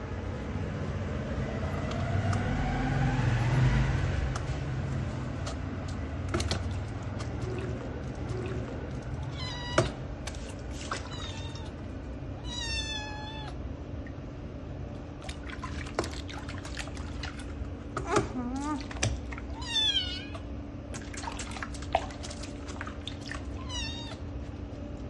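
A small kitten mewing several times in high, thin cries, some of them wavering in pitch, while it is being bathed.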